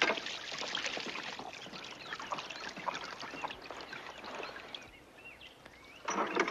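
Water splashing and trickling, with small birds chirping over it; a louder splash comes near the end.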